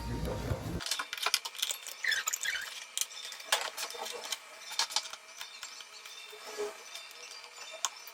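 Tableware being handled: scattered light clinks and taps at uneven intervals.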